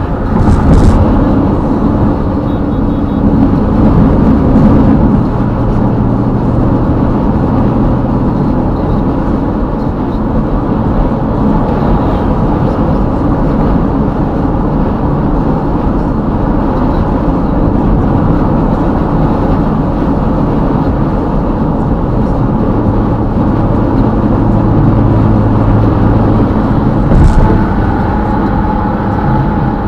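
Car driving at highway speed: steady tyre and engine noise, with a brief knock about a second in and another near the end.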